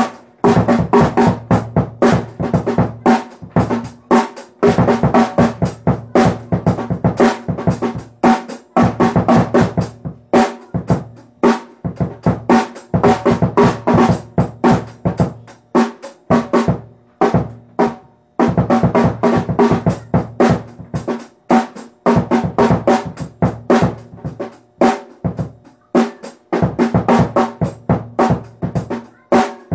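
Pearl three-piece mini drum kit played in a practice exercise: fast runs of snare and bass drum strokes, broken by short pauses between phrases.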